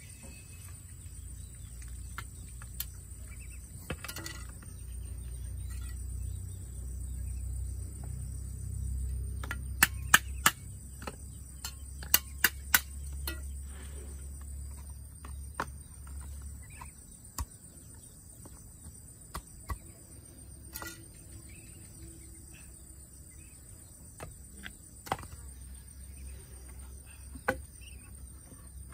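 Insects trill steadily in a high tone throughout, over a low rumble. Scattered sharp knocks cut through, the loudest in two quick groups of three about ten and twelve seconds in.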